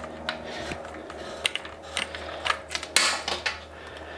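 Plastic hose fitting being unscrewed from a bidet seat's water inlet by hand, the hard plastic parts giving irregular clicks and rattles, over a steady low hum. The connection is being taken apart because it leaked when the water was turned on.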